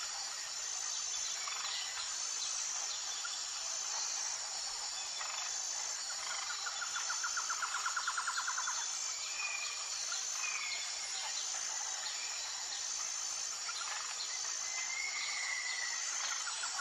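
Insects and birds calling: a steady high, pulsing insect drone, with a fast rattling trill about halfway through and a few short bird chirps.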